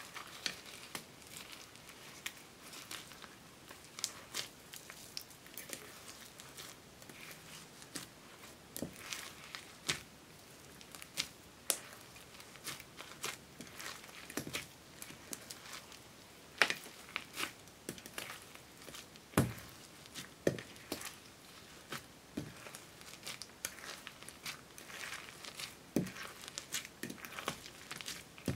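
Fluffy slime with foam beads mixed in, being kneaded, stretched and folded by hand in a glass dish: irregular sticky crackles and pops, with a few louder pops here and there.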